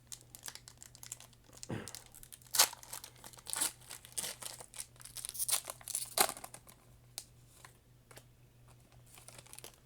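Pokémon booster pack's foil wrapper crinkling and being torn open, in irregular crackles with a sharp loud crackle about two and a half seconds in, tapering off to lighter rustles near the end.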